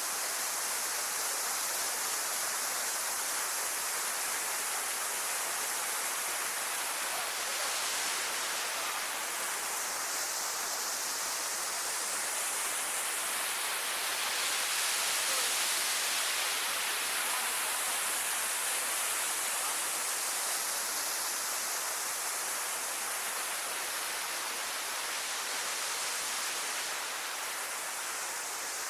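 Waterfall rushing in a steady, even roar of water, its tone slowly sweeping up and down every several seconds.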